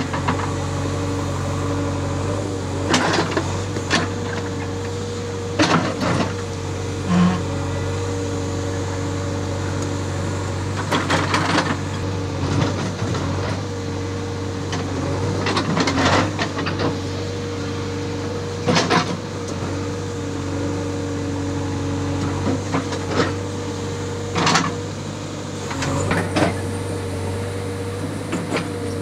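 JCB backhoe loader's diesel engine running steadily, with irregular sharp knocks and clanks as the backhoe arm and bucket dig through soil and rock.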